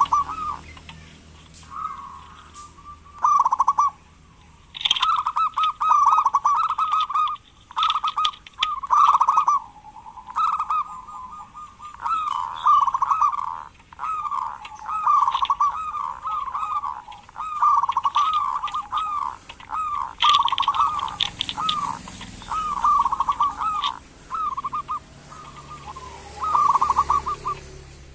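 Zebra doves (perkutut) calling in rapid stuttering coo phrases, roughly one phrase a second with short gaps, the kerot call that is played as a lure to get quiet perkutut to call.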